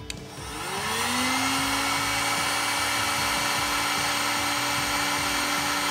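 Electric heat gun switched on with a click, its fan motor whining up in pitch over the first second and then running steadily with a rush of air.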